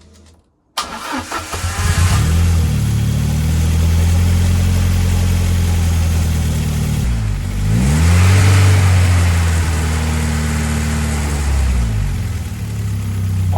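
Ford Escort Cosworth's turbocharged Cosworth YB four-cylinder engine starting up about a second in and then running steadily, its revs dipping and picking back up twice.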